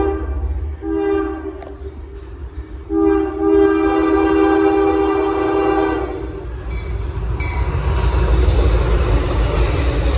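A first-generation Nathan K5HL five-chime air horn on a CSX ES40DC locomotive sounding for a grade crossing: the end of one blast, a short blast, then a long blast of about three seconds. Then the train passes close by with a loud, steady rush of engine and wheel noise.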